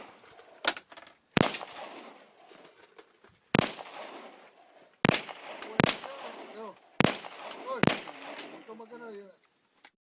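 Gunshots fired one at a time: six loud shots spaced about one to two seconds apart, with a fainter shot near the start. A voice is heard briefly among the last shots.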